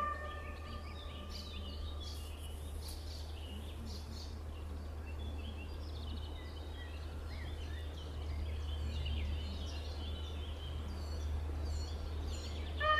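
Small birds chirping and twittering over a steady low rumble. At the very end a train horn begins to sound in several steady tones.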